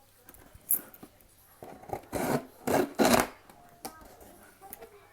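A key being dragged through the packing tape and cardboard of a shipping box to slit it open: a small click, then two long rasping scrapes about a second in and near the middle.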